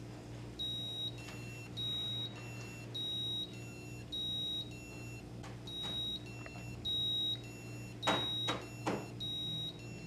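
Piezo speaker of a BASIC Stamp door alarm sounding its alarm tone: a higher beep and a lower beep, each about half a second, alternating about eight times over. This is the alarm going off because the Ping))) ultrasonic sensor has detected someone closer than the unobstructed distance. A couple of faint knocks come near the end.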